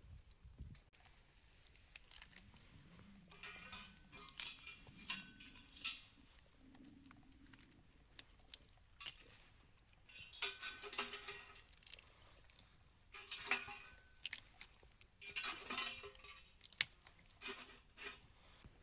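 Metal cookware and utensils clinking and scraping in several short, irregular bursts, some with a brief ring.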